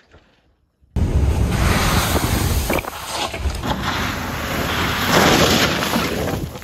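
Loud wind buffeting the microphone, starting abruptly about a second in: a steady rushing noise with a deep rumble.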